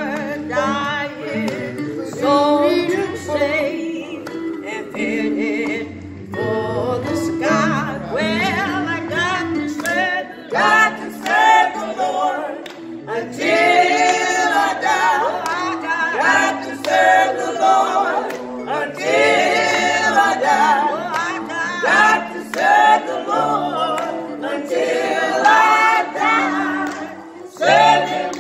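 A small group of voices, a man and several older women, singing a song together.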